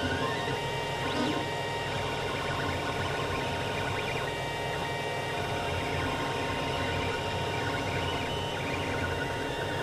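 Creality CR-10 3D printer running a print: its stepper motors whine in short pitched tones that change as the axes move, over a steady mechanical hum.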